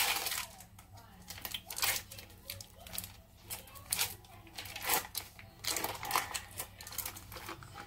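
Foil wrapper of a cream cheese block crinkling and tearing as it is peeled open by hand: irregular crackling rustles, the sharpest right at the start.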